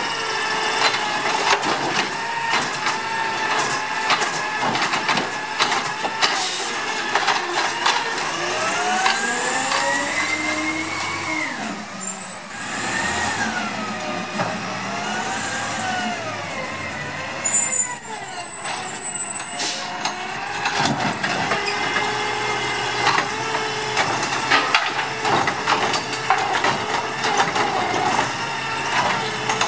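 CNG Autocar ACX garbage truck with a Dadee Scorpion automated side-loader arm at work: the engine's pitch rises and falls in long sweeps as the truck revs and moves off. A sharp, high brake squeal comes a little past halfway, and the rest is filled with the arm's hydraulics clunking and knocking.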